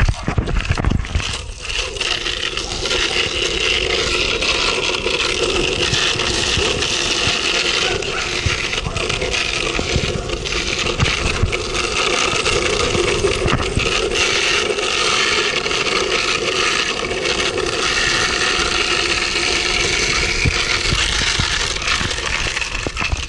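Longboard wheels rolling steadily over pavement, a continuous rolling rumble that settles in about a second and a half in.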